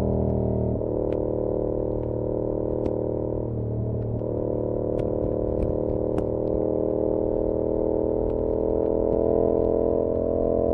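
Yamaha R7's 689 cc parallel-twin engine running through an SC-Project CR-T exhaust under way, heard muffled from a recorder inside the rider's backpack. The engine note breaks briefly near the start and again about four seconds in, then climbs slowly. Scattered light clicks come from the backpack's straps hitting the bag.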